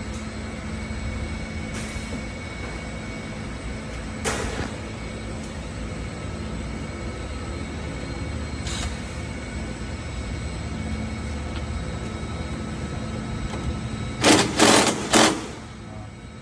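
Steady background hum of a repair shop, with a short hiss about four seconds in, a fainter one near nine seconds, and three loud short bursts of hissing noise close together near the end.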